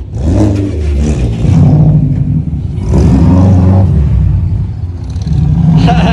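A car engine revs hard three times in quick surges as the car pulls away. A high wavering sound comes in near the end.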